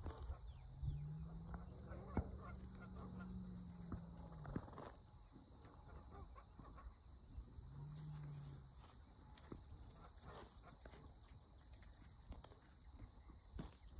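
Faint rural outdoor ambience: low wind rumble and a steady high insect drone. A low, drawn-out animal-like moan starts about a second in and lasts some three seconds, and a shorter one comes around eight seconds in, with scattered faint clicks.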